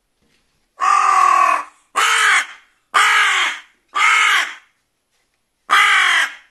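Carrion crow cawing loudly, five harsh caws each arching up and down in pitch: four in a row about a second apart, then a short pause and a fifth.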